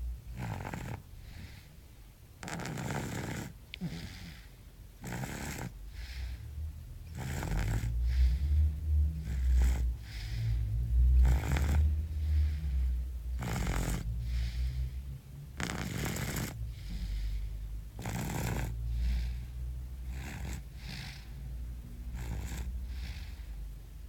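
Snoring: slow, regular snoring breaths about one every two seconds, with a low rumble underneath.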